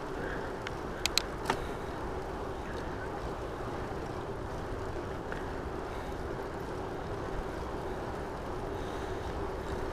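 Steady rolling noise of a bicycle being ridden along a paved trail, with a faint steady hum and three sharp clicks a little after a second in.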